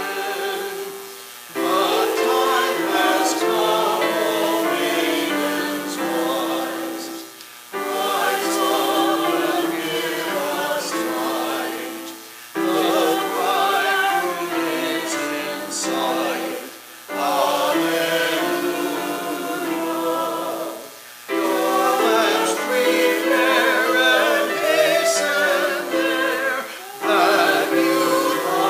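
A small church choir, a man and a woman, singing a sacred song in phrases of about four to five seconds, each ending in a short breath pause.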